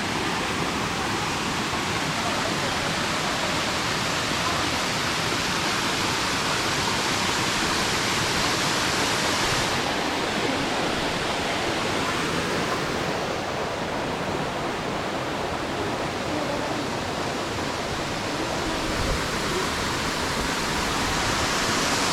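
Waterfall: a steady rush of falling water, its tone shifting slightly about ten seconds in.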